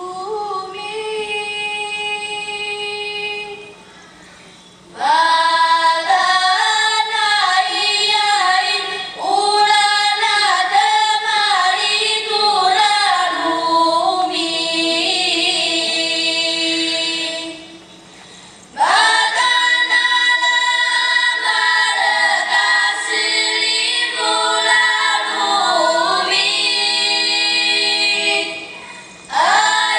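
Paiwan children's choir singing together in sung phrases, broken by brief pauses three times.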